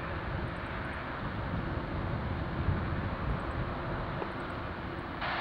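Jet aircraft engines: a steady low rumble that swells slightly midway.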